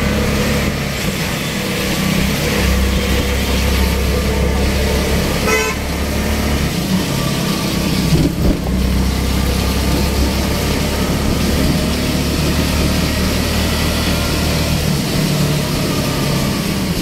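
Road traffic in heavy rain: a vehicle engine running steadily under a constant hiss of rain and traffic, with a short vehicle horn toot about five and a half seconds in.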